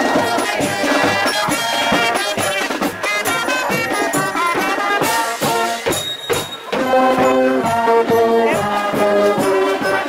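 Marching band playing: drums beating under a brass melody.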